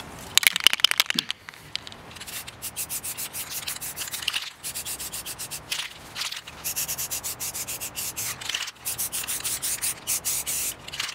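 Aerosol can of black spray paint: a quick rattle of the mixing ball as the can is shaken, then several spray bursts of hiss, each a second or two long with short breaks between.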